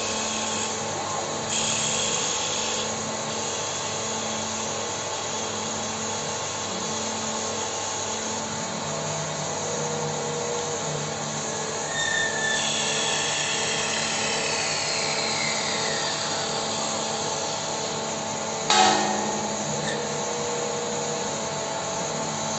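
Automatic CNC wood lathe running, its cutter shaving the spinning wooden blank with a steady whir and hiss. About halfway through, the cutting gets louder and a whine falls slowly in pitch; a sharp knock sounds near the end.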